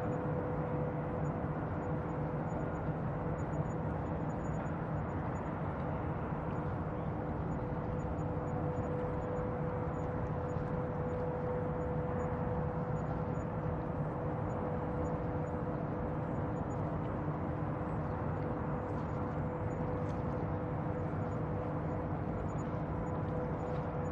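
Bayside ambience: a steady low rumble with a constant hum running unchanged, like machinery or engines heard across the water.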